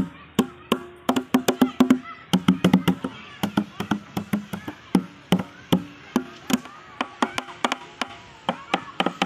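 Plastic playground drums beaten by hand in a quick, uneven rhythm, several hollow strikes a second. The drum tops sound at two slightly different low pitches.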